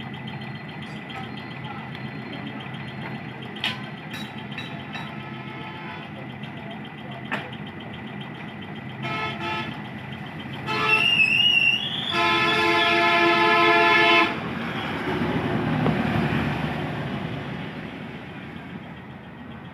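Street traffic: vehicle horns sound several times, ending in one long blast of about two seconds past the middle, followed by a vehicle passing. A steady traffic hum and scattered small clicks run underneath.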